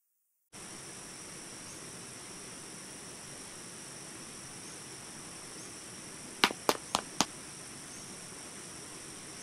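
Steady outdoor insect chirring over a faint hiss, starting suddenly about half a second in. A quick run of four sharp clicks stands out about six and a half seconds in.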